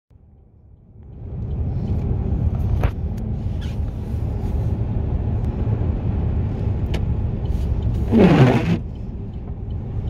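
Steady low rumble of a car's tyres and engine on a snow-covered highway, heard from inside the cabin, fading in over the first second or two. A couple of faint clicks, and a brief louder sweep falling in pitch about eight seconds in.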